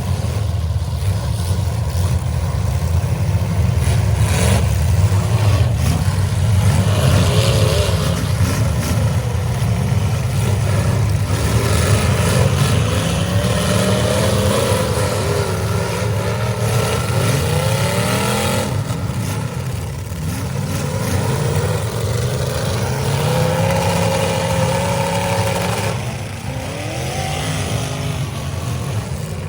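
Several demolition derby cars' engines revving hard and racing up and down in pitch, with occasional bangs from cars colliding.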